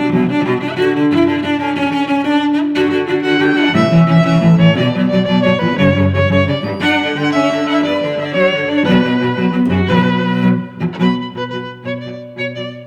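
Background music played on bowed strings, violin and cello, with sustained notes that change every second or so, turning into shorter, detached notes near the end.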